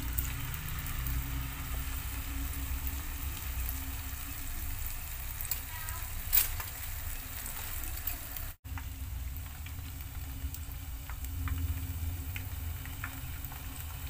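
Flour-coated spiral-cut potato deep-frying in hot oil in a pan: a steady sizzle with scattered small crackles, a sharp click about six seconds in, and a momentary dropout just past halfway.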